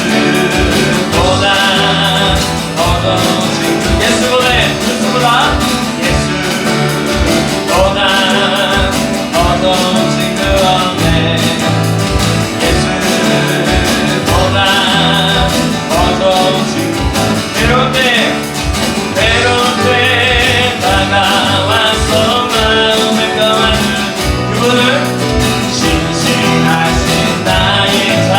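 Live worship band playing a praise song with a steady beat: acoustic guitar, keyboard, bass guitar and electronic drums, with voices singing over them.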